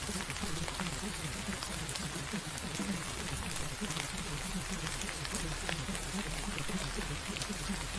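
Steady rain, an even hiss dotted with sharp droplet ticks, over a low, rapidly fluttering murmur.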